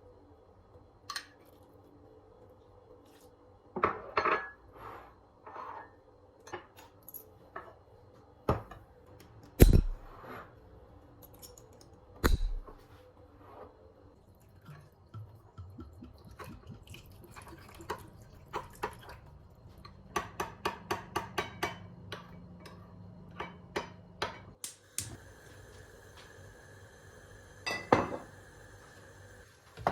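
Kitchen utensils and dishes being handled during food preparation: scattered knocks, clinks and taps, with a quick run of light clicks partway through. A steady hum starts near the end.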